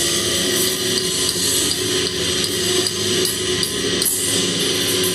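Live rock band playing loud, distorted noise, with guitar notes held over it and scattered sharp hits near the end.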